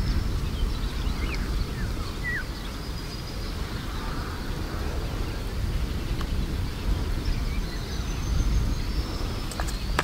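Outdoor field ambience: a steady low rumble of wind buffeting the microphone, with a few faint bird chirps about two seconds in.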